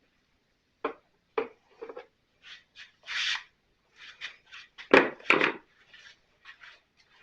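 Hand tools knocking, clicking and scraping on the backpack blower's housing as a part is pried loose, with a scrape about three seconds in and two sharp knocks about five seconds in.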